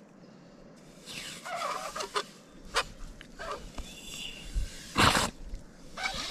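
Hand yabby pump working in wet tidal mud, with irregular sucking and squelching sounds. The loudest burst comes about five seconds in, as a plug of mud is pushed out.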